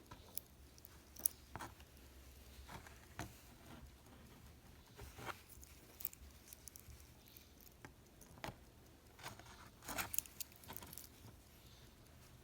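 Scattered light clicks and rattles from a Rolex Datejust 16233 wristwatch being handled, with a denser cluster about ten seconds in. The sound comes from its metal bracelet and its automatic rotor, which the owner says has a slight abnormal noise.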